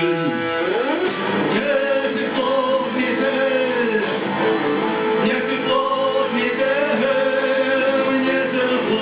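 A song performed live: guitar with a singing voice holding long notes.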